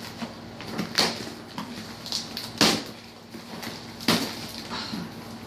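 A parcel being opened by hand: three sharp cracks or knocks about a second and a half apart, with rustling and tearing of packaging in between.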